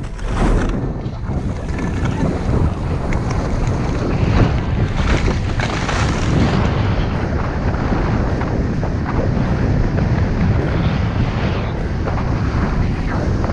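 Wind buffeting the microphone, with the rushing, grainy noise of skiing downhill over snow.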